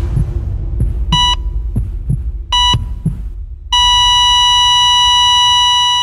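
Heart-monitor sound effect: two beeps about a second and a half apart over low heartbeat thuds and a low rumble. About two-thirds of the way in, the monitor goes to a steady flatline tone, the alarm that the heart has stopped.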